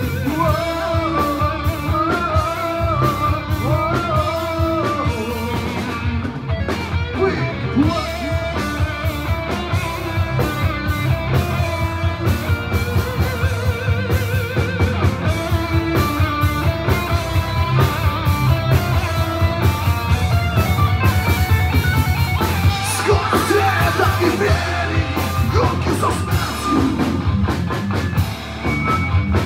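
Live heavy metal band playing: electric guitars, bass guitar and a drum kit keeping a fast, steady beat.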